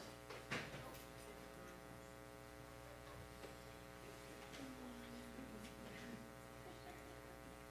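Faint, steady electrical mains hum and buzz, with a single sharp click about half a second in.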